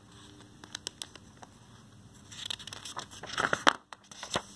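Paper page of a picture book being turned by hand: a few light clicks, then a rustling crinkle of paper for about a second and a half, ending in a sharper crackle, with one more click near the end.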